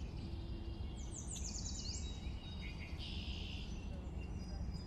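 Faint outdoor ambience: a steady low rumble with birds chirping, a quick run of short high, falling chirps about a second in and another brief high burst a little past the middle.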